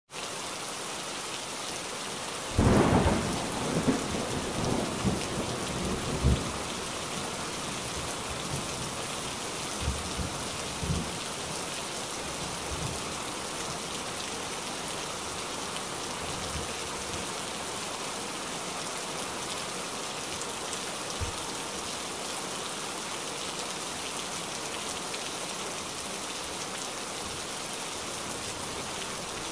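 Steady hiss of rain falling, with a few short low rumbles in the first several seconds and a couple more later.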